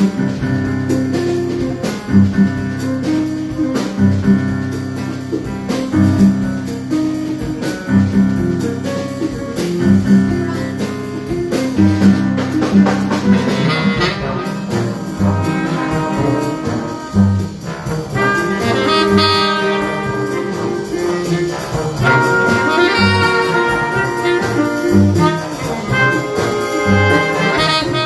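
High school jazz big band playing live: saxophones, trumpets and trombones over a rhythm section, with a repeating low riff in the first half and higher brass lines joining in the second half.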